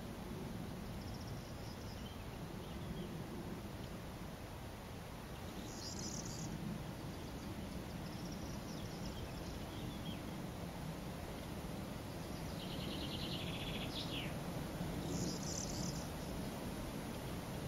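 Corn bunting singing: a few short, high phrases, the longest (a run of ticks ending in a quick sweep) about three-quarters of the way through, faint against a steady background hiss.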